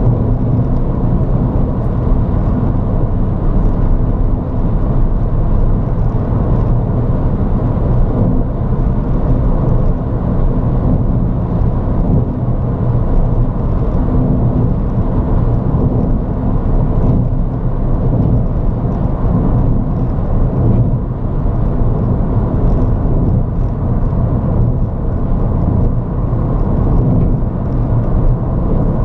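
Ford Fiesta ST driving along at speed: a steady, unbroken engine and road rumble.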